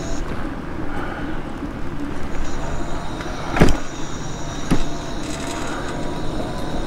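Ford F-150 pickup driving slowly, a steady low engine and tyre rumble, with two short knocks about a second apart.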